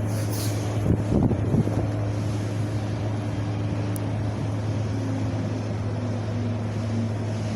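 Wind blowing and rumbling on the microphone over a steady low drone, with a stronger gust about a second in.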